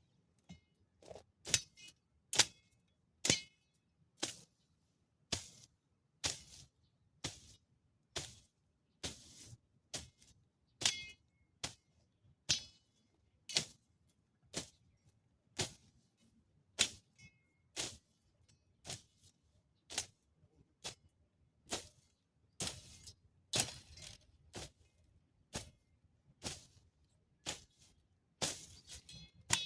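A steady series of sharp clicks, roughly one a second, some with a brief metallic ring.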